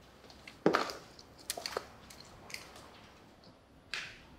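A few irregular footsteps and shoe scuffs on concrete stairs, each with a short echo.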